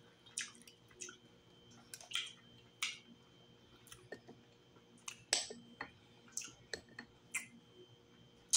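Close-up wet chewing and lip smacks of someone eating mussel meat, with small clicks, as irregular short sharp sounds about one or two a second.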